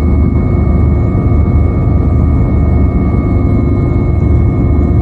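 Helicopter in flight heard from inside the cabin: loud, steady engine and rotor noise heavy in the low end, with several steady high whining tones over it.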